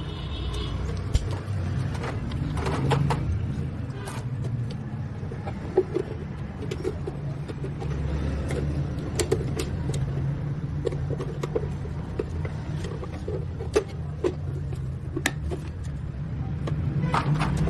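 Steady low rumble of a running vehicle engine, with scattered sharp clicks and knocks throughout.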